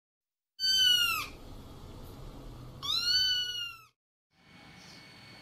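A kitten meowing twice: two high, drawn-out meows, the second a little longer, each dropping in pitch at its end.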